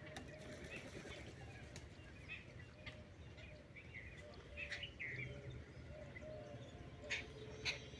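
Lovebirds chirping with short, scattered calls, over a low steady background rumble, with a few sharp clicks in the second half.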